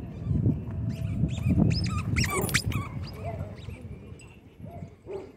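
Dogs playing, with a quick run of high-pitched squeaks about two seconds in and a few fainter, lower calls after.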